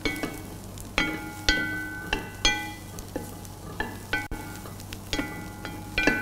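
Wooden spoon stirring cauliflower florets in a white enamel pot, knocking against the pot every half second to a second, each knock leaving a short ringing tone. Under it, a faint sizzle of the florets sautéing in butter.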